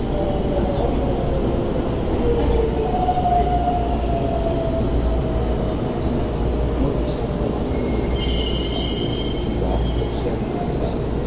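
Electric commuter train pulling into the platform and braking to a stop: a whine glides down in pitch as it slows, over a steady low rumble. High brake squeal starts about halfway through and stops shortly before the end.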